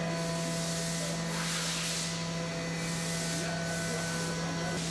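CNC mill cutting a billet aluminium steering wheel under coolant spray: a steady machine hum, with the hiss of the coolant jets and cutting swelling and fading every second or so.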